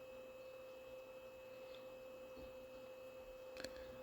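Faint, steady electrical hum-like tone from the amplifier test bench, a single pitch with a fainter higher whine above it, and a soft click a little after three and a half seconds.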